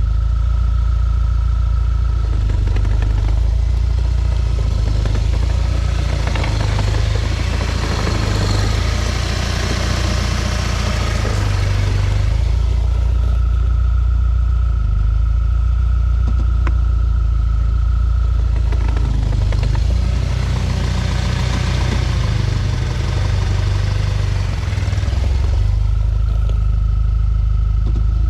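2012 Audi A4 with S tronic dual-clutch gearbox, engine running steadily, with two spells of a loud rattle, each lasting about six seconds. The owner says the rattle happens only in reverse under load; a gearbox specialist traced it to a badly burned-out clutch caused by a faulty mechatronic unit.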